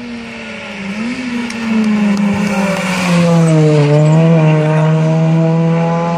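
Rally car's engine running hard as it approaches, growing louder over the first couple of seconds. Its note dips briefly a little past halfway, then recovers and holds steady as the car passes close.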